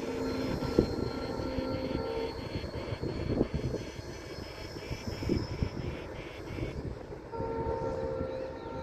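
Long passenger train running past in the distance, a steady rumble. A steady tone is held for about two seconds near the start and again near the end.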